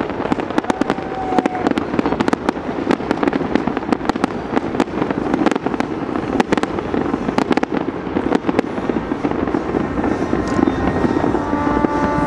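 Fireworks display bursting: a dense run of bangs and crackles over a steady wash of noise, thinning out after about eight or nine seconds as the show ends. Near the end a steady horn starts sounding.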